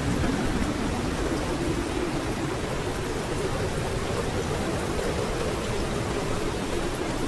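Heavy typhoon rain falling, a steady rushing noise.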